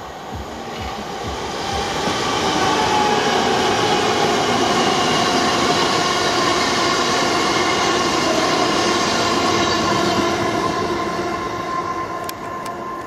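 c2c Class 357 electric multiple unit passing at speed: wheels running on the rails with a steady high whine, the noise building over the first two seconds and easing off near the end, with a few sharp clicks at the very end.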